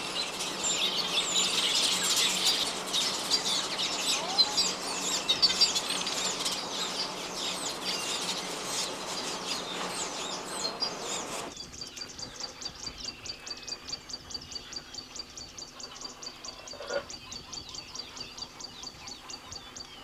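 A weaver colony chattering: a dense mass of high chirps, squeaks and buzzy notes from many birds at once. About eleven seconds in the chorus cuts off and a single high note repeated evenly about five times a second takes over, more quietly.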